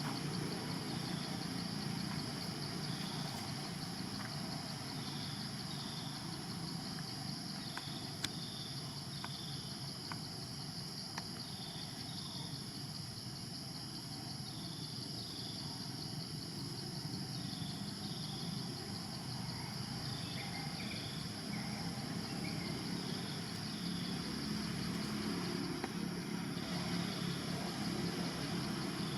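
Steady high-pitched insect drone, with short chirps repeating every second or two and a low rumble underneath.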